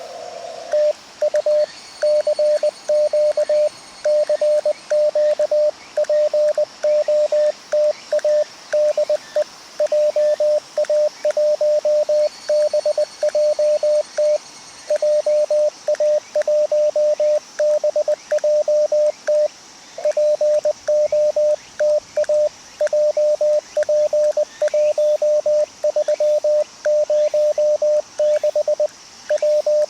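Morse code (CW) from an amateur radio transceiver: a single steady tone keyed on and off in dots and dashes at a code speed of around 20 words per minute, over faint receiver hiss. A faint high whistle comes and goes twice.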